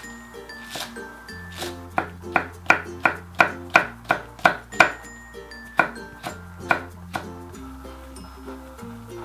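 Ceramic kitchen knife chopping through garlic chives and a red chili pepper onto a wooden cutting board. After about a second and a half comes a quick, even run of about ten crisp strokes, about three a second, then a few slower chops. Light background music plays under it.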